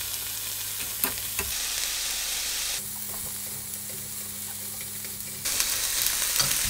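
Strips of pork jowl and whole garlic cloves sizzling in a hot frying pan, with a few light clicks as chopsticks turn the meat. The sizzle gets louder about five and a half seconds in.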